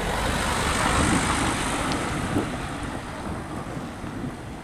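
Wind rumbling on the microphone, with a broad rushing noise that swells about a second in and then slowly fades.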